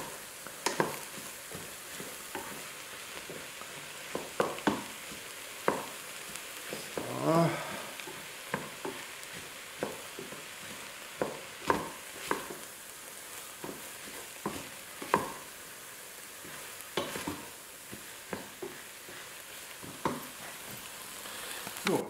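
Chopped onions, garlic and tomato paste sizzling as they brown in a stainless steel pot, stirred with a wooden spoon that knocks and scrapes against the pot about once a second.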